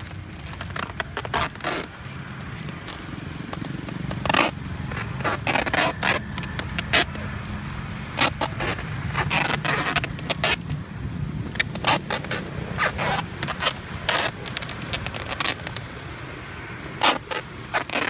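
Packing tape being pulled off the roll and plastic snack bags crinkling as they are taped onto a person's arms, in irregular rasping bursts over a steady low hum.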